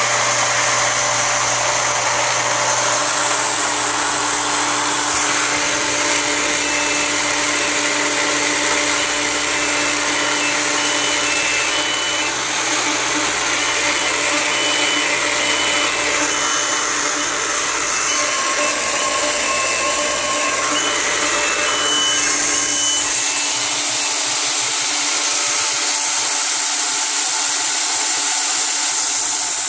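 Electric water pump running steadily, its motor hum mixed with water rushing through the pipework. About three-quarters in, the low hum drops away and the rush turns hissier.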